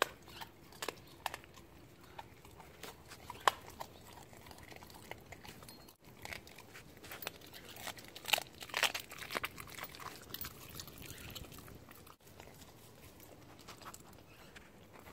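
Siberian husky chewing and crunching raw chicken, its teeth working through meat and bone in irregular crunches and clicks that come thickest around the middle.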